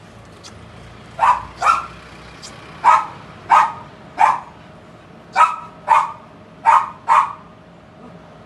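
A dog barking: nine short barks, some in quick pairs, spread over about six seconds.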